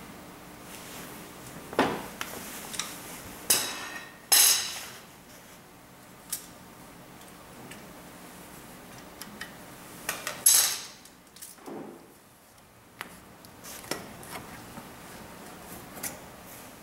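Scattered clinks, knocks and scrapes of hand tools on metal as a radiator hose is unclamped and pulled off a diesel generator engine, with a few louder clanks among them.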